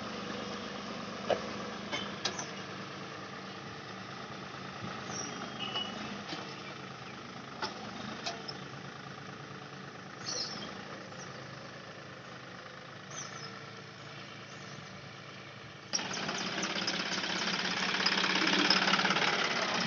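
John Deere tractor's diesel engine running steadily as it pulls a single-disc plough through soil, with a few sharp clicks in the first half. About three-quarters of the way through the engine suddenly gets louder and stays so.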